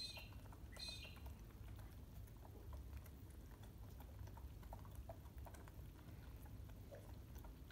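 Faint wet clicks of two koala joeys suckling from milk bottle teats, with a short high squeak about a second in.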